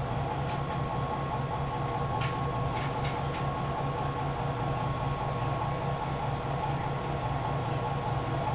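Steady mechanical hum of a running nanofiltration rig pressurising its membrane module. A few faint clicks come about two to three and a half seconds in as the back-pressure valve is turned by hand.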